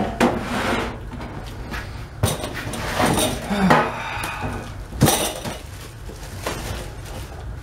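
A full plastic kitchen trash bag rustling as it is lifted out of a stainless steel step trash can and its top gathered, with the glass in it clinking and about six sharp knocks against the can.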